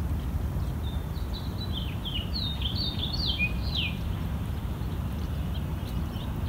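A small songbird singing a quick run of short, downward-slurred chirps from about a second in until about four seconds in, over a steady low rumble.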